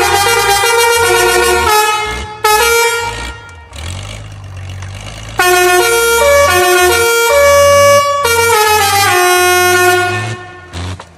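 Multi-tone musical air horn (busina) playing a stepping melody of held notes, mixed with an electronic dance beat with a pulsing bass. The horn tune dies down about three seconds in, comes back loud at about five seconds, and fades out near the end.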